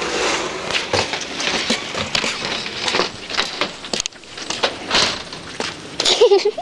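Handling noise: a handheld camera being carried, its microphone rubbing against a fleece jacket and fingers, giving irregular rustling and scraping with sharp little knocks.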